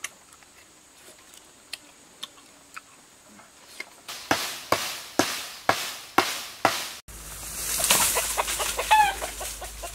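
A chicken clucking, with short pitched squawks near the end. Before that comes a run of about seven sharp, evenly spaced sounds, about two a second, which are the loudest part.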